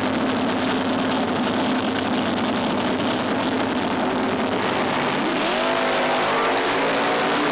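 Super Stock drag race cars' engines running hard at wide-open throttle, a dense loud roar; about five seconds in the engine pitch climbs as a car accelerates.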